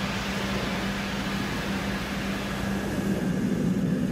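Air rushing through a Wells turbine, a steady hiss over a continuous low hum.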